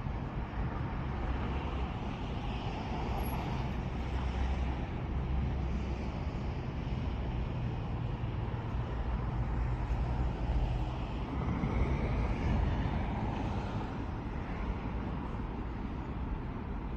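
Steady outdoor city ambience dominated by a low rumble of road traffic, swelling slightly about two thirds of the way in.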